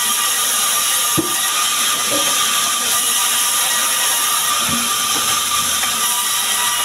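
Band saw mill running and cutting small sengon logs into boards, a steady high whine and hiss from the blade. A couple of wooden knocks, about a second in and near five seconds, as the timber is pushed through and handled.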